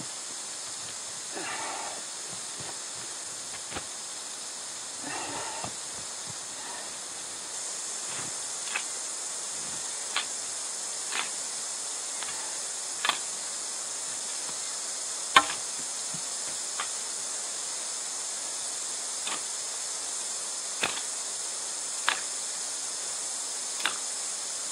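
Steam hissing steadily from a hangi earth oven as wet sacks cover the red-hot stones, growing a little louder about a third of the way in. Sharp pops and cracks sound every second or two, with a brief rustle of sacking early on.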